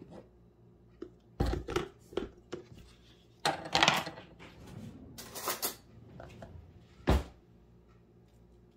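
Kitchen handling sounds: a series of light clicks, knocks and short clatters of utensils or containers, with a longer rattling clatter about four seconds in and one sharp knock near the end.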